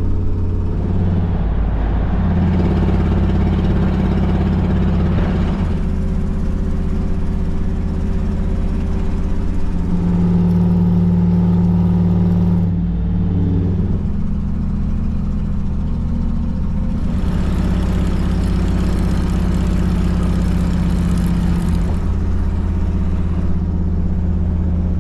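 A road vehicle's engine running while driving, a steady drone whose pitch steps up or down several times as the engine speed changes.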